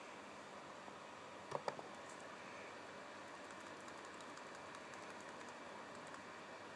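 Typing on a computer keyboard: two sharp key clicks about a second and a half in, then faint light taps, over a steady hiss.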